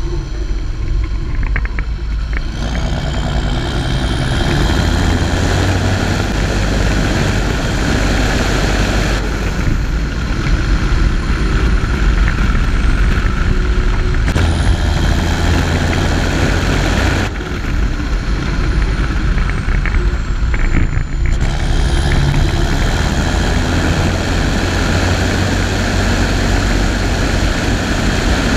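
John Deere 7530 Premium tractor's six-cylinder diesel engine running as the tractor drives on the road. The engine note changes abruptly several times, and a faint high whine rises and falls above it.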